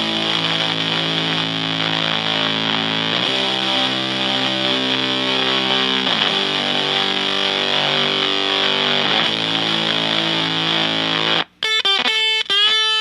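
Electric guitar (Fender Stratocaster) through an Atomic Fuzz gated silicon fuzz pedal into a Fender Blues Junior amp, set for softness and sustain. Long sustained fuzzy chords change about every three seconds. Near the end the sound cuts off briefly and gives way to short, choppy notes with pitch bends.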